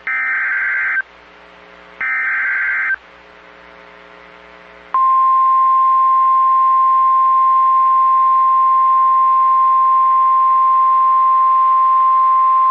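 NOAA Weather Radio Emergency Alert System signal. First come the last two bursts of the SAME digital header, each a one-second warbling data screech, two seconds apart. About five seconds in, the steady single-pitch 1050 Hz warning alarm tone starts and holds. Together they announce an incoming flash flood warning.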